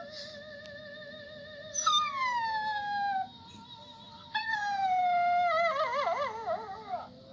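Rottweiler puppy whining and howling: two long cries that fall in pitch, the second breaking into a wavering warble near the end.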